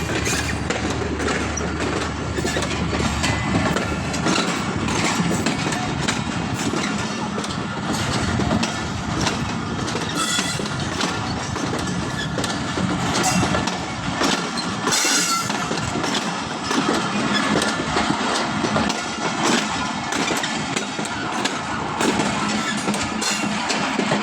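A train running on the track, its wheels clattering over the rails with occasional louder clanks.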